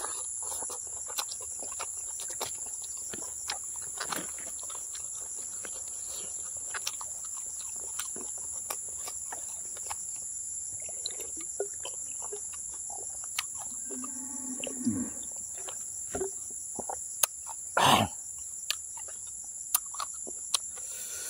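Insects trilling steadily at two high pitches, over close-up sticky chewing and mouth clicks as cooked cow skin is eaten. A short low hum comes a little past the middle, and a brief louder mouth noise follows a few seconds later.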